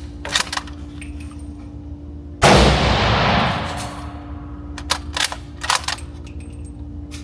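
One unsuppressed rifle shot from a Q Mini Fix bolt-action in 300 Blackout, firing 110-grain supersonic V-MAX ammunition, about two and a half seconds in. The report dies away over about a second and a half. A few light clicks come before and after the shot.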